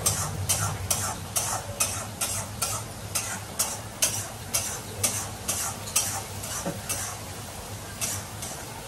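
A spatula stirring and scraping around a kadai over a gas burner in steady strokes, about two a second, with food sizzling in the pan.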